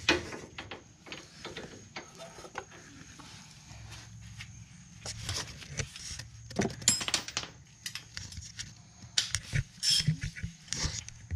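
Hand tools on the bottom bolt of a rear shock absorber: a wrench and a hammer working against the suspension, giving irregular metal clinks and knocks. A few sharper, ringing metal strikes come in the last few seconds.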